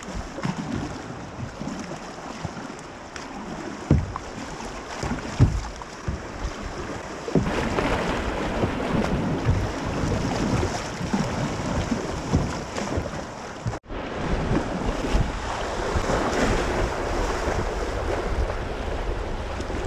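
River water rushing and splashing around a kayak, with wind buffeting the microphone. A couple of sharp knocks come in the first few seconds, and the water grows louder about seven seconds in. The sound cuts out for an instant about two-thirds of the way through.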